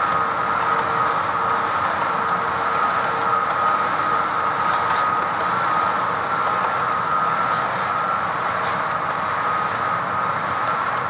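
HO-scale model freight cars rolling past on the track: a steady rolling rumble with a constant high whine and a few faint wheel clicks.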